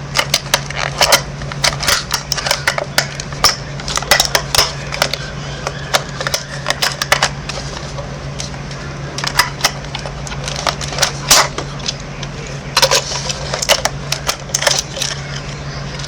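Small plastic parts of a miniature toy vending machine clicking and tapping as they are handled and fitted together, in irregular runs of sharp clicks, over a steady low hum.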